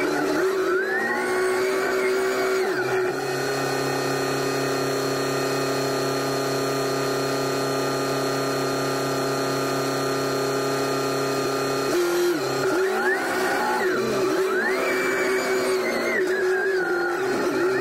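SkyTrak telehandler's diesel engine running under the mic, its pitch rising and falling as the boom and forks are worked in the first few seconds and again from about twelve seconds in, with steady running in between.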